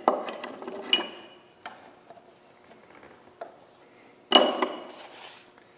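Metal parts of an Ammco 4000 brake lathe being handled at the spindle and bellows way cover, giving a few sharp metallic knocks and clinks. The loudest clank comes about four seconds in and rings briefly.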